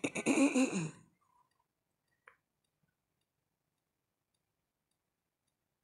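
A woman's voice trails off in the first second, then one faint click about two seconds in, then dead silence.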